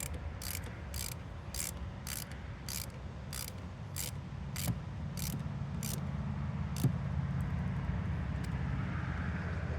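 Ratchet wrench clicking as it tightens the fuel filter housing bolts, about two clicks a second, stopping about seven seconds in. A steady low hum runs underneath.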